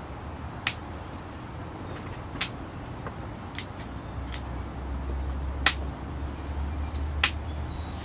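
Small bonsai scissors snipping off thin, spindly dead twig ends on a spruce bonsai: about six sharp, short snips, unevenly spaced a second or so apart.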